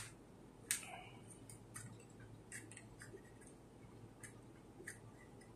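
Light plastic clicks and ticks from a pry tool being worked along the seam of a dashcam's plastic shell, with a sharper snap under a second in, then scattered lighter clicks.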